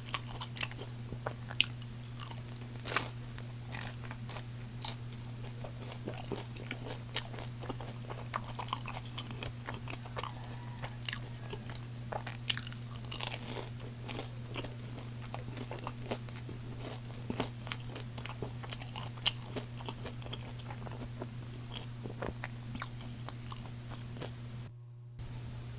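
Close-miked eating: crunchy bites and chewing, many short crunches at an irregular pace, over a steady low hum that cuts out for a moment near the end.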